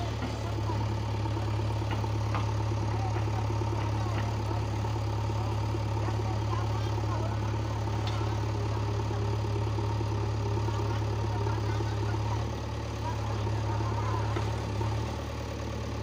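The diesel engine of a JCB 3DX backhoe loader running steadily near idle, a low hum that drops slightly in level about twelve seconds in.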